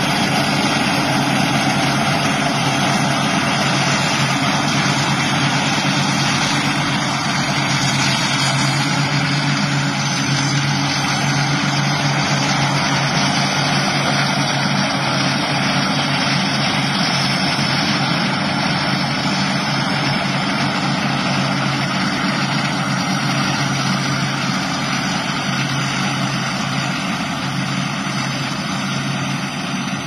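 Rice combine harvester running steadily under load while cutting and threshing rice, a constant diesel engine drone mixed with the hiss and clatter of its machinery.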